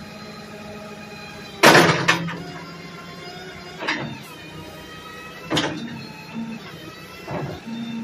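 Master Craft 214E truck-mounted backhoe's hydraulics running with a steady whine and hum while the boom and bucket move. Sharp clunks come as the arm is worked: a loud double clunk about a second and a half in, then single ones roughly every two seconds.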